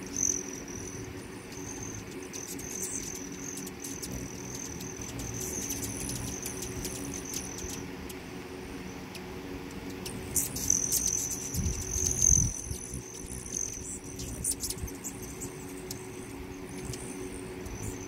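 Hummingbirds at nectar feeders: a high, steady trill that stops and starts, many short squeaky chips, and a loud low wing hum as one hovers close about eleven to thirteen seconds in.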